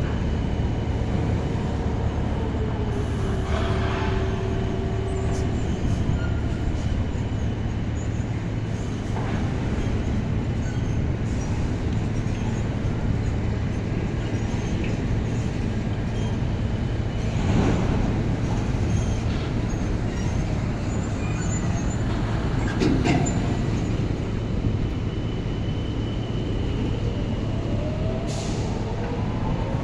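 Train running: a steady low rumble and hum, with a motor tone that slides down a couple of seconds in and climbs again near the end, and a few brief louder clanks in between.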